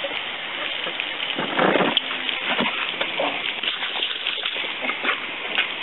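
Garden hose water jet spraying and spattering, splashing against a dog that bites at the stream, with a louder burst of splashing about a second and a half in.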